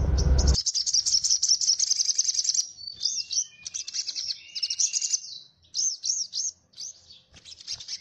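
Javan grey-throated white-eye (opior Jawa) singing: a fast, high twittering run for the first couple of seconds, then a string of varied high whistled phrases and quick notes with short gaps between them.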